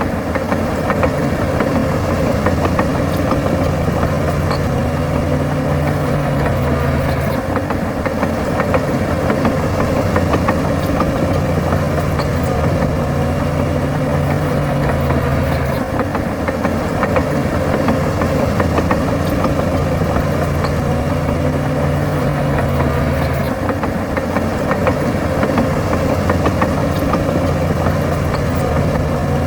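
A bulldozer's heavy diesel engine running steadily, its note dropping and rising again in a repeating cycle about every eight seconds.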